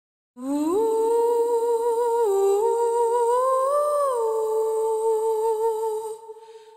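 A wordless voice humming a slow, mournful melody: it slides up into the first note, dips and rises through a few notes, then holds one long wavering note that fades out near the end.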